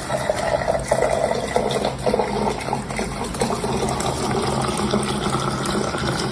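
Steady rushing, water-like noise over a low steady hum.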